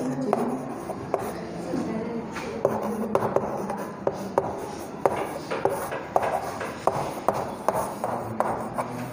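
Chalk writing on a chalkboard: scratchy strokes broken by many short, sharp taps as the chalk strikes the board.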